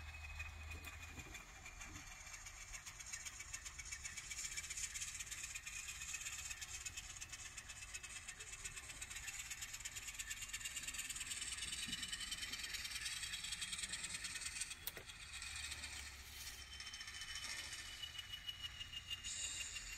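N scale Alco diesel switcher's ESU sound decoder playing a steady diesel engine sound through its small speaker as the model locomotive runs slowly along the track, with a faint high whine drifting in pitch.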